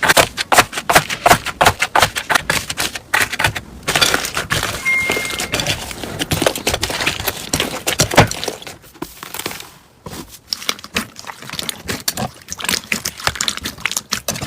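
Slime being squeezed and pressed by hand, giving rapid crackling pops and clicks, with a softer, hissier stretch in the middle and a brief lull near the end.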